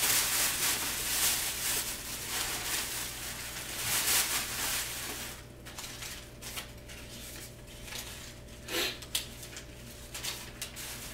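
A bag rustles steadily as a hand digs through it. After about five seconds it gives way to quieter, broken rustling and a few short clicks as paper banknotes are handled.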